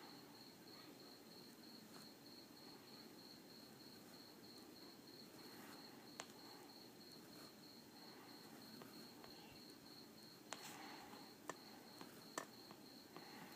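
Near silence with a faint, steady, high-pitched pulsing trill, as of a cricket. A few sharp clicks come in the second half.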